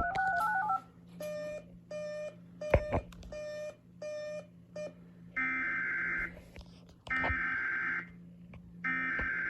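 A short two-note electronic warble, then about six short beeps, then from about halfway in the three screeching data bursts of an Emergency Alert System SAME header, each about a second long and a second apart. A low steady hum runs underneath.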